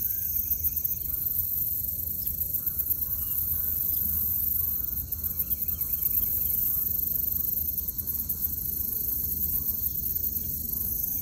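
Steady high-pitched chorus of insects such as crickets, over a low, even rumble.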